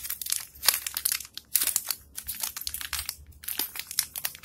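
Crinkling and crackling of a small, tightly sealed plastic packet being worked open by hand, in quick irregular crackles.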